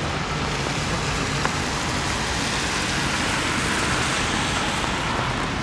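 Steady rushing noise of road traffic, swelling slightly around the middle.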